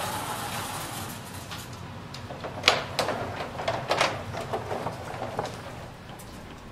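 Gates of an old freight elevator being opened by hand: the collapsible steel car gate rattling as it folds aside and the slatted wooden hoistway gate being lifted, with a few sharp clacks near the middle.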